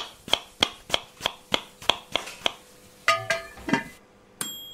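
Short closing music jingle: a run of sharp, evenly spaced ticks, about three a second, then a brief plucked-string flourish, ending with a single bell-like ding that rings on.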